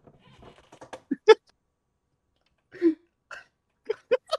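Short, scattered vocal sounds from people in a small room: a few brief bursts like throat sounds and stifled laughs, about one, three and four seconds in, rather than sentences.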